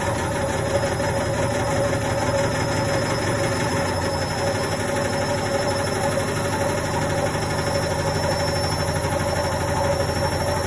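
Indesit washing machine running a quick wash, a steady motor hum with a faint high whine. The low hum grows stronger about four seconds in.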